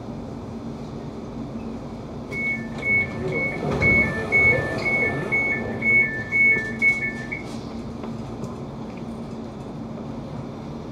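Class 710 train's door-closing warning: a two-tone beeping, alternating high and low about two times a second for some five seconds, over the steady hum of the standing train.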